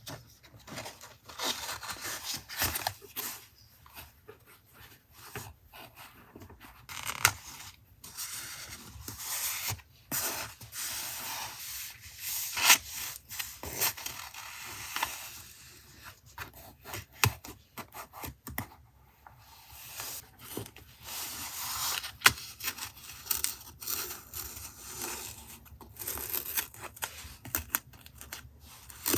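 Paper being handled and rubbed for a journal collage, in a run of short, irregular scrapes and taps.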